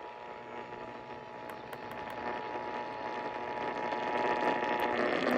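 Emergency Alert System attention signal: two steady tones sounding together over radio hiss with faint crackles, cutting off about five seconds in while the hiss grows louder.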